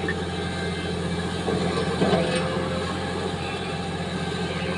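Large Sany hydraulic excavator's diesel engine running steadily under load as the machine climbs a rocky spoil slope on its crawler tracks, with a brief clatter about two seconds in.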